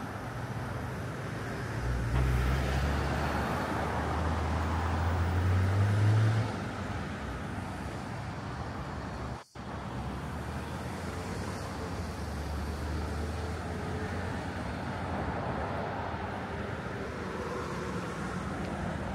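Road traffic: a nearby vehicle's engine rumbles from about two seconds in, rises in pitch and then drops away, over steady traffic noise. The sound cuts out for a moment about halfway through.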